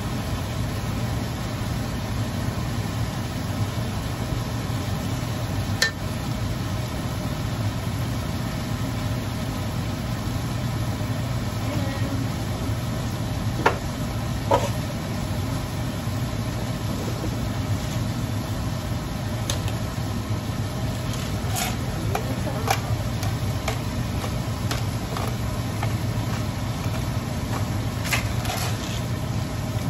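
Steady low mechanical hum under a stir-fry, with a metal spoon clinking and scraping against a steel wok several times, mostly in the second half.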